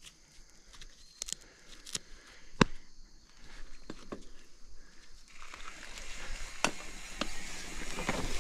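Scattered sharp knocks and clicks over faint rustling, one knock much louder than the rest about two and a half seconds in; from about five seconds in, a steady rush of movement noise builds up and grows louder.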